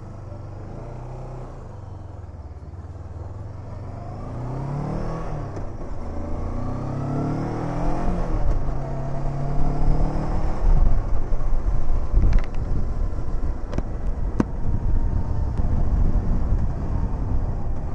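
Hunter Maverick 500 motorcycle engine pulling away and accelerating through the gears, its pitch rising and dropping at each shift. It then settles into a louder, rougher run at road speed, with wind noise and a few sharp knocks.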